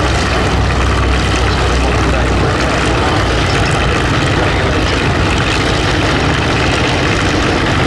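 Hawker Sea Fury's Bristol Centaurus 18-cylinder sleeve-valve radial engine running at low power as the aircraft taxis, a steady loud propeller-driven rumble. The deepest part of the rumble eases a little a couple of seconds in.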